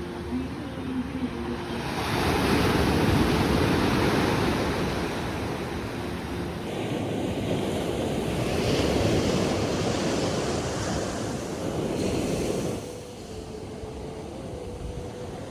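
Sea waves washing onto a shore, a loud surge about two seconds in and another from about seven seconds, easing off near the end, with wind.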